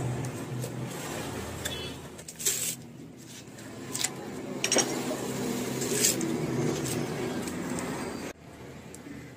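A butcher's knife cutting beef ribs, with a few sharp clicks of the blade over a steady background rumble. The rumble drops away abruptly near the end.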